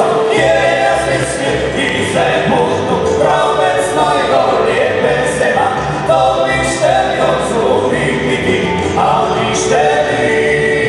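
Live folk song: several men's voices singing in harmony, with violin, double bass and guitar playing along.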